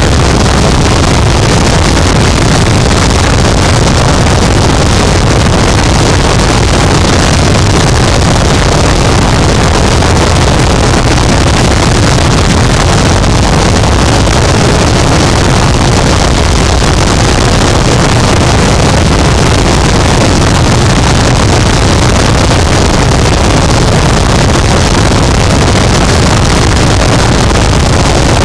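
Harsh noise wall: a loud, dense, unchanging wall of static noise, heaviest in the low end, with no rhythm, pitch or change from moment to moment.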